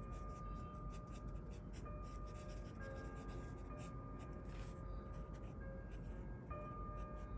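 Felt-tip marker scratching over paper in short colouring strokes, over soft background music of held, bell-like notes.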